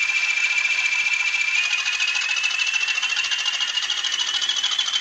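DCC sound decoder in an N gauge Class 20 model locomotive playing a recorded Class 20 diesel engine sound through its tiny speaker while the model runs: a fast, even engine beat with a high whine that climbs slowly in pitch from about one and a half seconds in.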